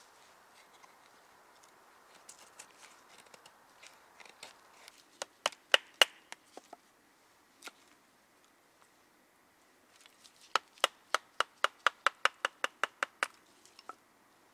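Bushcraft knife working wood on a tree-stump chopping block: faint scraping as curls are shaved off a feather stick, then sharp knocks as kindling is split. A cluster of about seven knocks comes a little past halfway, and a fast run of about fifteen, five or six a second, comes near the end.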